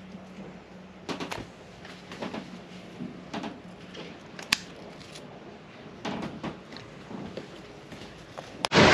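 Scissors snipping stems and fruit off a cherry tomato plant: a scatter of small sharp clicks and snips with leaf rustling, one sharper click about halfway. A sudden loud rush of wind and sea noise breaks in just before the end.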